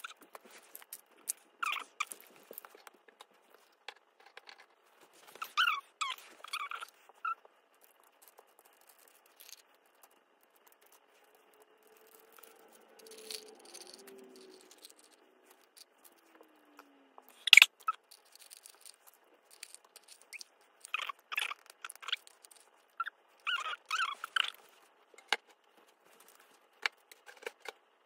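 Plastic pens and markers clicking and clattering as they are handled, sorted into piles and dropped into a ceramic bowl, in short bursts with pauses between. One sharp click, the loudest sound, comes a little past halfway.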